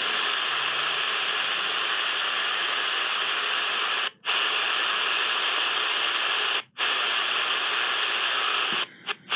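Shortwave static hiss from a Tecsun PL-606 world band radio's speaker between stations. The hiss is steady but cuts out briefly twice as the radio is tuned, then drops away near the end.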